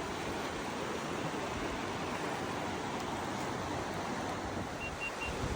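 River water rushing steadily, an even, unbroken rush.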